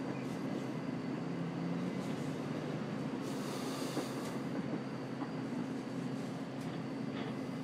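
Steady city background rumble with a constant low hum, and a brief hiss about three seconds in.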